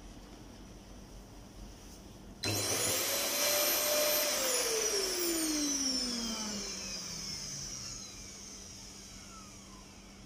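Canister vacuum cleaner motor, the suction unit of a cotton-picking prototype, switched on about two and a half seconds in and whining up to speed. It runs for a couple of seconds, then is switched off and winds down with a long falling whine.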